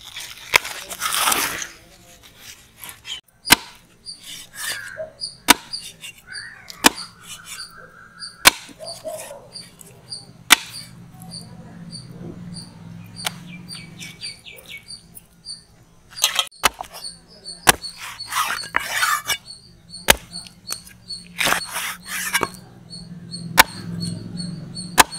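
Heavy knife chopping through a large leatherjacket fish onto a wooden log block: single sharp chops a second or more apart. A steady run of short high chirps goes on behind them.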